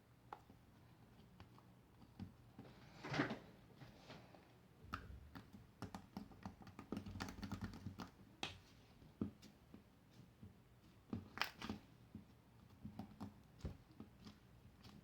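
Faint, irregular clicks, taps and crackles of homemade slime being kneaded and poked by hand, with louder crackly bursts about three seconds in and again near the middle.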